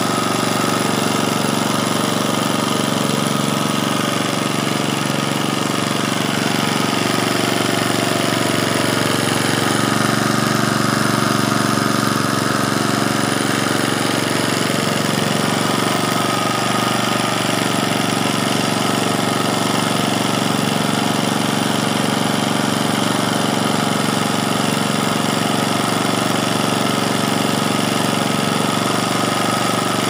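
A small engine running steadily at a constant speed.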